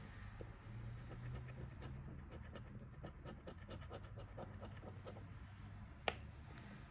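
A coin scraping the silver coating off a paper lottery scratch card in quick, quiet back-and-forth strokes. A single sharp click follows about six seconds in.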